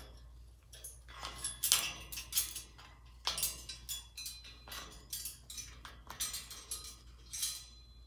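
Female eclectus parrot clambering about her metal cage: a run of irregular rustles and clinks, starting about a second in and stopping near the end.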